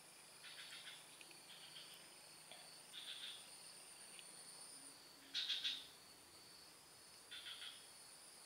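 Faint wildlife ambience: a steady high-pitched insect drone, with short, rapidly pulsed chirping calls every second or two. The loudest chirp comes about five seconds in.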